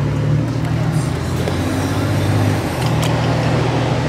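Car engine and tyre noise heard from inside the cabin while driving: a steady low drone whose pitch shifts slightly a couple of times.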